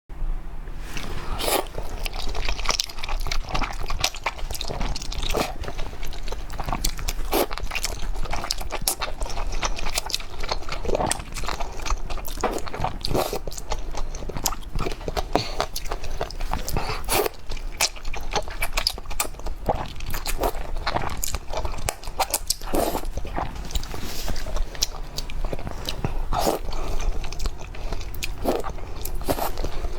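Close-miked eating: a person chewing and crunching food, with many quick, irregular crackles and bites, over a steady low hum.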